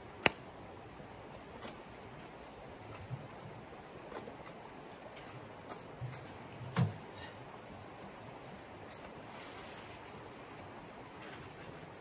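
Creek water running steadily, with clattering from a small camp wood stove being handled: a sharp click just after the start, several lighter knocks, and a heavier low thump a little before seven seconds in.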